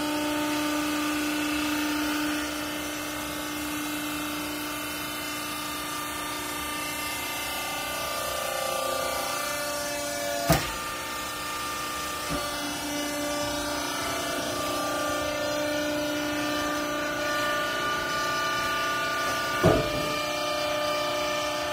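Electric hydraulic power unit of a vertical clothes baler running with a steady, even hum. Three sharp knocks cut through it: one about halfway, another shortly after, and the loudest near the end.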